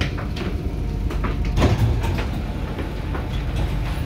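Inside a Dubai Metro train carriage: a steady low rumble with scattered knocks and clatter, one louder about a second and a half in.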